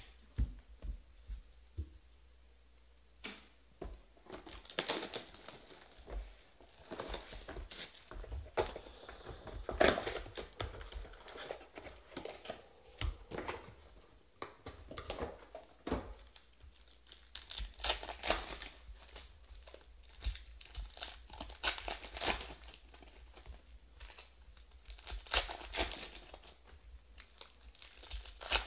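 Foil trading-card pack wrappers crinkling and tearing as packs are ripped open by hand, in irregular bursts of crackle.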